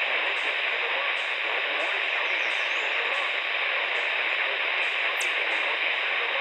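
Steady hiss of static from a NOAA Weather Radio receiver.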